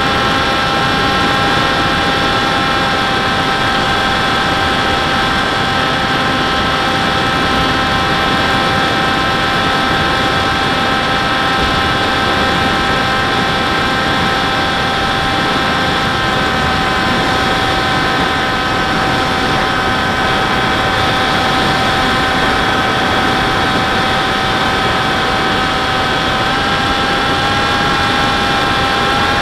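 Model airplane's motor and propeller running steadily, heard from the onboard camera with wind rush, a constant whine over a steady hiss. The pitch rises slightly near the end.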